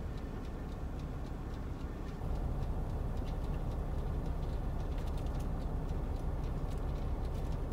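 Steady low rumble of an idling truck heard inside its cab, getting louder about two seconds in, with faint scattered ticks.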